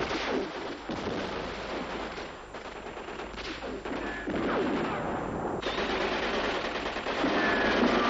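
Gunfire: a dense crackle of rapid, closely spaced shots, like rifle and machine-gun fire in a firefight.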